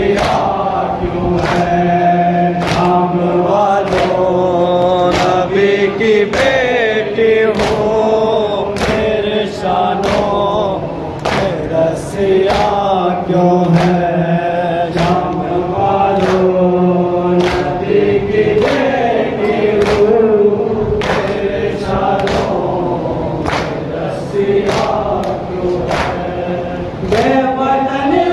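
Urdu noha, a Shia lament, chanted by male voices with the group joining in, over sharp, even slaps of hands beating on chests in matam, about three slaps every two seconds.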